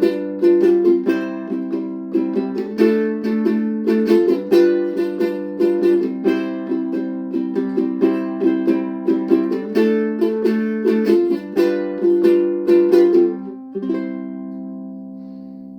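Ukulele playing the closing instrumental of a song, a steady run of plucked notes over chords, ending about two seconds before the end on a last chord that rings out and fades.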